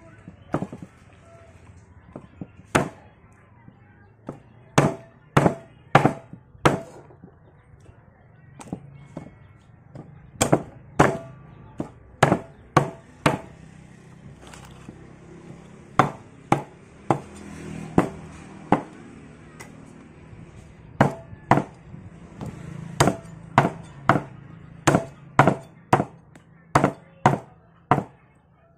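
Heavy cleaver chopping a plucked duck into pieces on a thick round wooden chopping block: dozens of sharp chops in irregular runs of a few strikes, with short pauses between.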